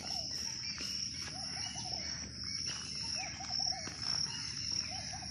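Crickets trilling steadily at a high pitch, with a short low chirping call of three or four notes repeating about once a second.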